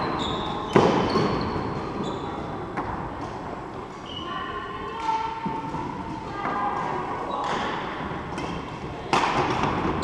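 Badminton rally: rackets striking the shuttlecock at irregular intervals, the sharpest hit about a second in, with shoe squeaks and footfalls on the wooden court floor, echoing in a large sports hall.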